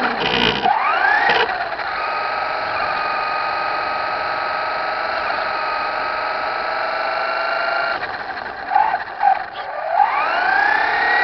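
Traxxas Slash 4x4 RC truck's electric motor and gears whining as it drives. The pitch rises as it speeds up about half a second in, then holds steady. It dips with a few short thumps around eight to ten seconds in, and rises again near the end.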